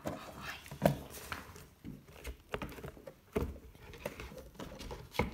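Kittens scrabbling about inside a cardboard box: irregular light taps, scratches and rustles of paws on cardboard, with a sharper knock about a second in.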